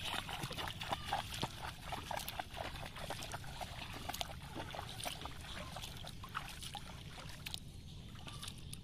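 Shallow pond water splashing and sloshing as someone wades through it, an irregular run of small splashes over a steady low rumble.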